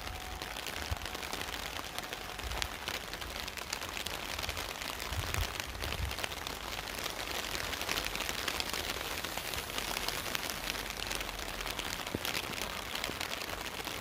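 Steady rain falling, an even hiss, with a few low bumps now and then.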